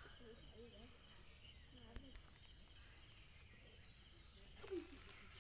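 Steady, high-pitched insect chorus, with faint voices in the distance.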